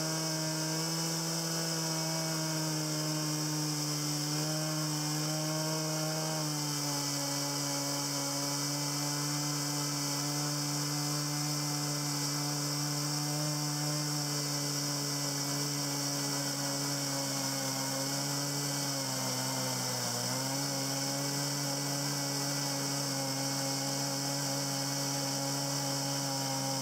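Husqvarna 40cc two-stroke chainsaw running steadily at high revs while milling a log. The pitch drops a little about six seconds in and dips briefly near twenty seconds as the chain takes load in the cut.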